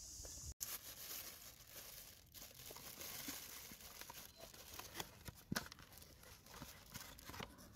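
Faint rustling and crinkling of plastic food bags, with light clicks and one sharper click about five and a half seconds in.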